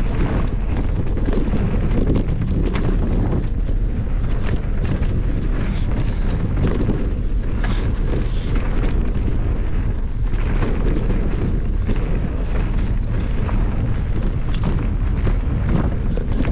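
Wind buffeting an action camera's microphone during a fast mountain-bike descent on a dirt trail, a steady low rumble, with the hardtail bike rattling and clicking over bumps.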